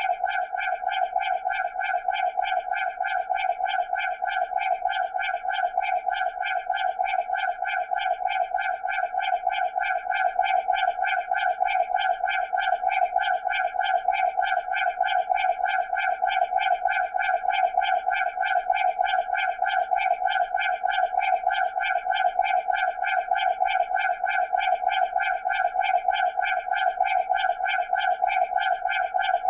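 Electronic alarm sound effect: one unbroken buzzing note with a rapid, even pulse, holding the same pitch throughout.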